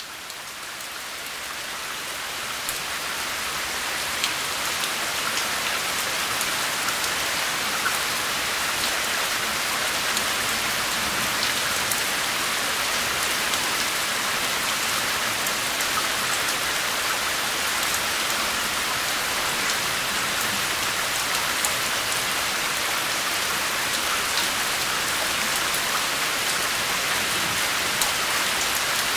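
Steady rain falling on a surface, with the sharp ticks of single drops heard here and there. It fades in over the first few seconds, then holds steady.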